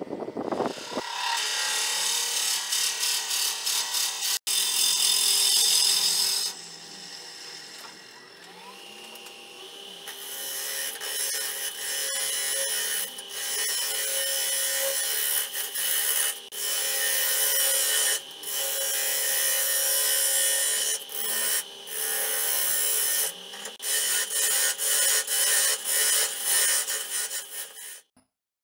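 Wood lathe spinning a carob (algarrobo) vase blank while a hand-held turning tool cuts into it, hollowing the mouth: a rough scraping hiss of steel on wood that comes and goes in passes, with short pauses between cuts.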